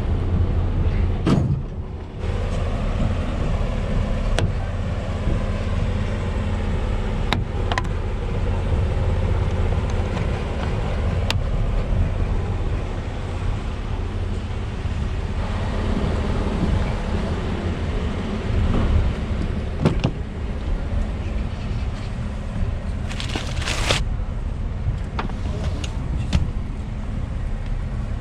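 2019 Chevrolet Colorado 4WD pickup with its 3.6-litre V6 petrol engine, driving over an off-road course: a steady low rumble of engine and drivetrain. Short knocks and rattles come every few seconds, and there is a brief hiss about four seconds before the end.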